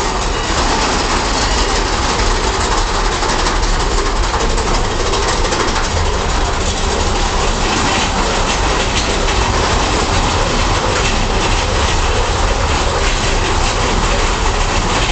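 Big Thunder Mountain Railroad mine-train roller coaster cars running along the track, a loud steady rattling rumble of wheels on rails.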